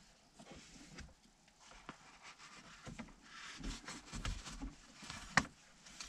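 Faint handling noise of hands working at a manual gear lever and its shift boot while fitting a shift knob: light rustling and small clicks, with one sharp click about five seconds in.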